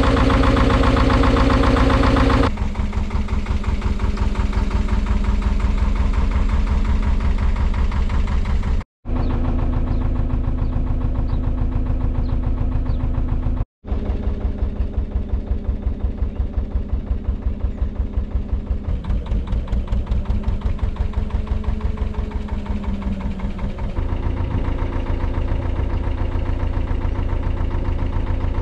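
Narrowboat's two-cylinder Lister diesel engine running under way with a rapid, even firing beat. It is loud and close for the first couple of seconds, then sounds further off. It breaks off briefly twice, and its speed shifts a little in the second half.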